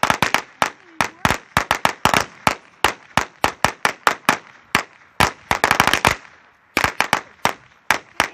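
Firecrackers going off in a rapid, irregular string of sharp pops, several a second, with a few brief pauses between bursts.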